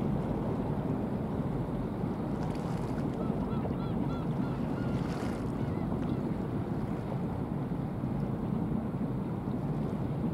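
Steady low rumble of a passing ship and wash on the water, with wind noise on the microphone. About three seconds in, a bird calls a quick run of short notes lasting about two seconds.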